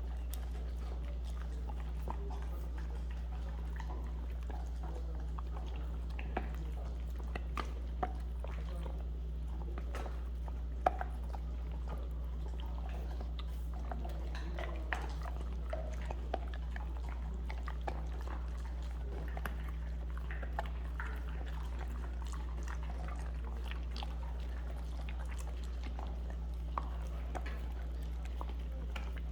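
A puppy chewing and biting a treat: scattered small clicks and crunches, irregular and mostly soft, with one sharper crunch about eleven seconds in, over a steady low hum.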